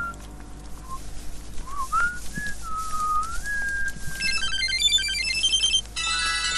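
A person whistling a wandering tune for the first few seconds, then a mobile phone ringtone, a repeating electronic melody, starts about four seconds in, breaks off briefly and rings on.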